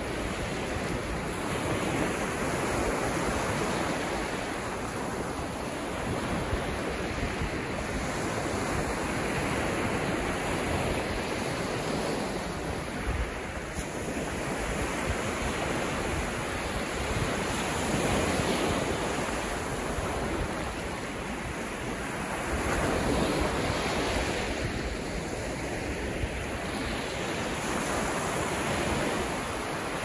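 Small, calm waves breaking and washing up onto a sandy beach, the surf swelling and easing every several seconds.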